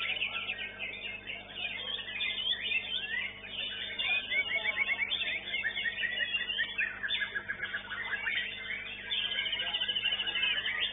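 White-rumped shama (murai batu) singing a varied song of rapid trills, chirps and quick whistled glides, over a steady low hum.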